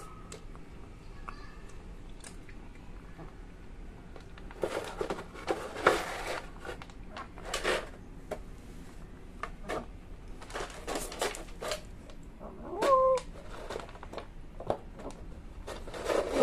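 Tabby cat crunching dry cat food from a plastic bowl in bursts of quick clicky chewing, with one short meow about thirteen seconds in.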